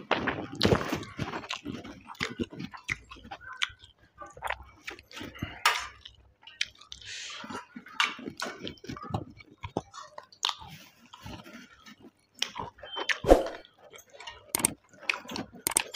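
Close-up eating sounds of a man eating mutton curry and rice by hand: chewing with irregular wet clicks and smacks, and a sharper knock about thirteen seconds in.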